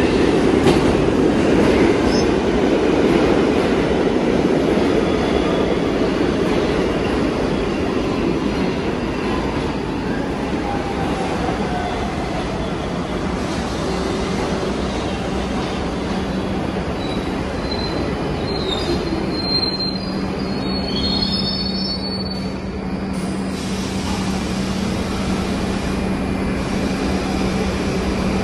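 New York City Subway R62 train pulling in alongside and braking to a stop, its wheels rumbling over the rails. High wheel and brake squeals rise from the middle of the rumble, and a steady low hum sets in as it slows.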